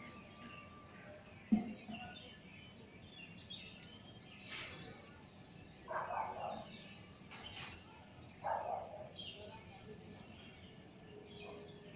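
Outdoor background noise with scattered small-bird chirps, a single sharp knock about a second and a half in, and two brief louder calls in the second half.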